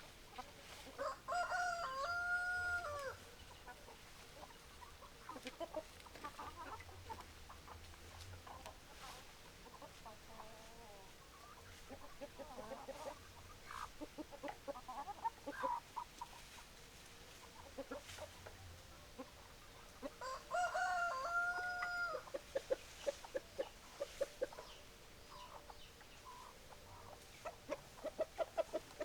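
A rooster crowing twice, about 20 seconds apart, each crow about two seconds long, with hens clucking in short notes in between.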